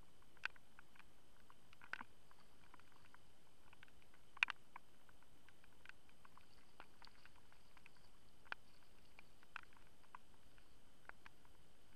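Faint, scattered small splashes and clicks from a hooked fish thrashing at the water's surface as it is played in, the loudest about four and a half seconds in.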